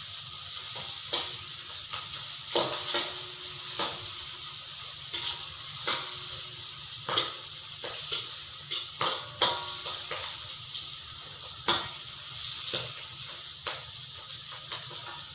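Squid pieces sizzling in hot oil in an aluminium wok, with a metal spatula scraping and clinking against the pan as they are stirred, every second or so.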